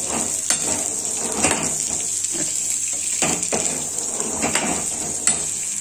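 Turkey berries sizzling in hot ghee in a metal kadai, with a steel ladle stirring them and scraping and knocking against the pan about once or twice a second.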